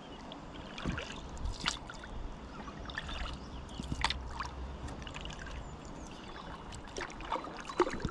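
Kayak paddle strokes on calm water: the double-bladed paddle dips in and pulls, with scattered small splashes and drips trickling off the blades.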